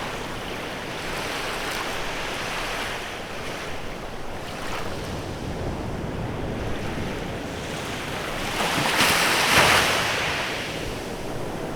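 Small waves breaking and washing up a beach, with the steady hiss of surf. A larger wave swells and breaks about nine seconds in, the loudest moment, then fades.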